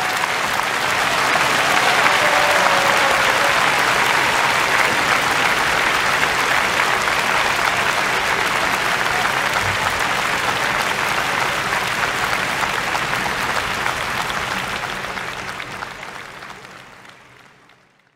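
Audience applauding steadily, fading out over the last few seconds.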